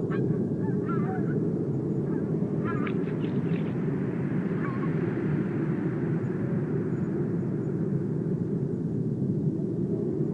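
Birds giving short calls in scattered bursts over a loud, steady low rumble.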